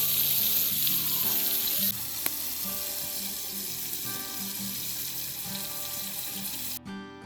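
Burger patties sizzling as they fry. The sizzle is loudest for the first two seconds, carries on more quietly, then cuts off suddenly near the end.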